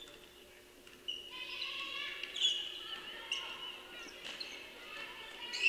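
Basketball shoes squeaking on a hardwood gym floor, a run of short high-pitched squeaks starting about a second in, with the ball bouncing during play.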